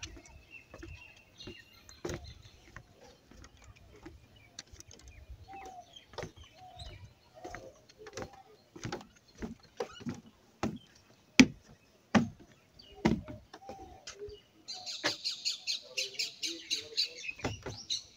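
Footsteps on the wooden boards of a footbridge, a sharp knock with each step. Near the end a bird chirps in a fast, dense run.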